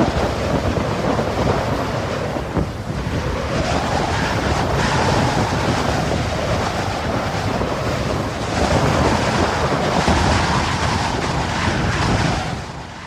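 Strong wind gusting hard over the microphone, a loud rushing noise that swells and eases twice and fades out near the end.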